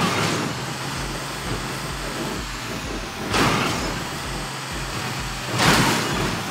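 Motor vehicle engine running steadily on a steep descent, with three short, loud bursts of hissing noise: one at the start, one midway and one near the end.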